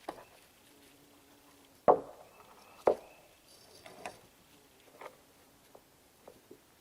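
A handful of sharp knocks and clunks, with two louder ones about a second apart about two seconds in, then a few softer knocks and ticks.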